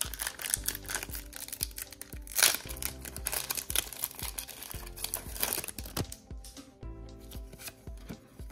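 Pokémon booster pack's foil wrapper being torn open and crinkled in the hands, a run of sharp crackles with the loudest rip about two and a half seconds in. Background music plays underneath.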